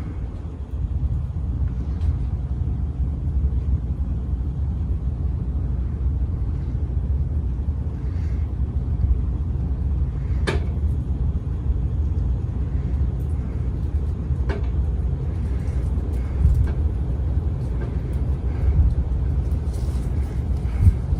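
Low rumble of a ceiling fan's draft buffeting the microphone, with a sharp click about ten seconds in and a fainter one a few seconds later.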